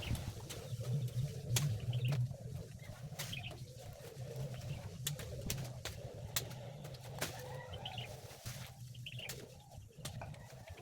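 Sharp snaps and clicks of cassava leaves being pulled off their stems, scattered irregularly, with a bird cooing repeatedly behind them.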